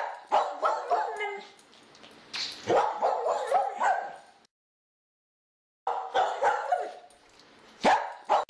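A dog barking and yipping in short bursts, broken by about a second and a half of dead silence around the middle.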